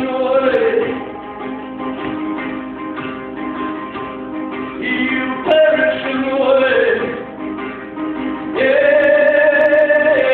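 Live band music: a man sings long, wavering notes that slide downward, over plucked banjo and band backing. A louder, sustained sung note comes in near the end.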